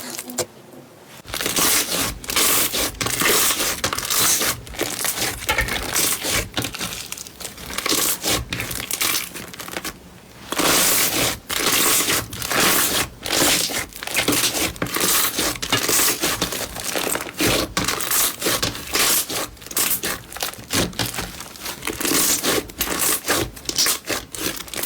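Slime being squeezed and worked by hand, giving a dense crackling and popping, with short lulls about a second in and again about ten seconds in.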